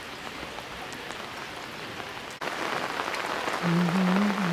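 Steady hiss of falling rain with scattered drop ticks, suddenly louder about halfway through; a man's low voice sounds briefly near the end.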